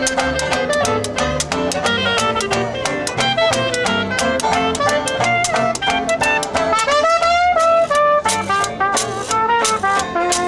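Traditional jazz street band playing: banjo strumming, washboard scraped to a quick, even beat, double bass, and clarinet and trumpet on the melody. About seven seconds in, the lead line glides upward.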